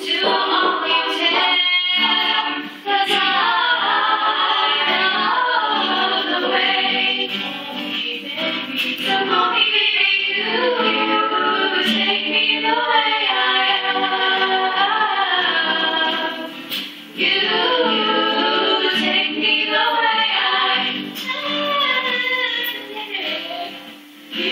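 A group of voices singing a song a cappella.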